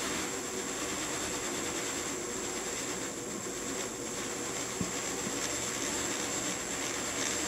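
Small electric motors of a fischertechnik model monorail running steadily, with a thin, high, constant whine over the running noise. A single short click about five seconds in.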